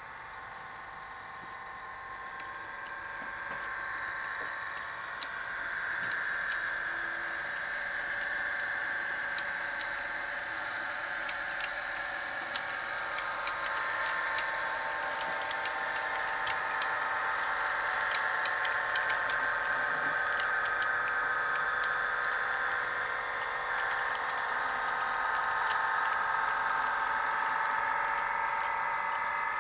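Bachmann OO gauge London Underground S-Stock model train running on the layout track: a steady motor and gear whine that grows louder over the first few seconds and then holds, with a scatter of light clicks from the wheels on the track in the middle.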